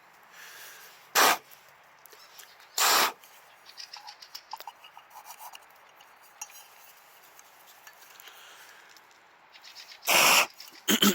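Four short, harsh rasping scrapes: two in the first three seconds, then two close together near the end, with faint light clinks and rustling between them.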